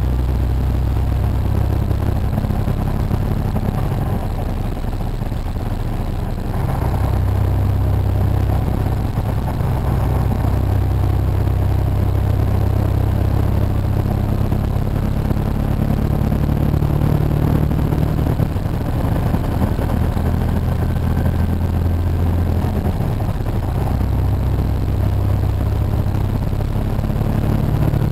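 Semi truck's diesel engine droning steadily at highway speed, heard from inside the cab, with road noise beneath it. The engine note shifts slightly in pitch now and then.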